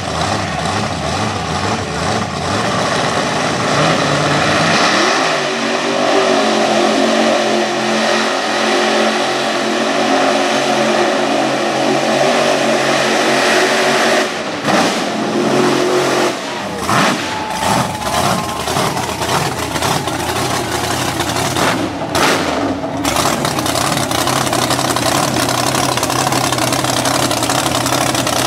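A 1600-horsepower mega truck's engine revving up under full throttle while the truck runs through a mud pit. The engine rises about four seconds in and holds a steady high note for about ten seconds. After that the sound breaks up with several short gaps, then settles to a lower, steady running note near the end.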